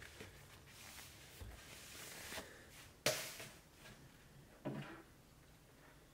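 Faint handling and rustling noises, then two sharp knocks about a second and a half apart, the first the louder.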